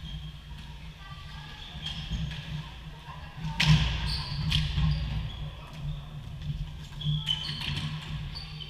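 Floorball play on a wooden sports-hall floor: shoes squeaking in short chirps, plastic sticks and ball clacking, with one sharp knock about three and a half seconds in, all echoing in the large hall over a steady low hum.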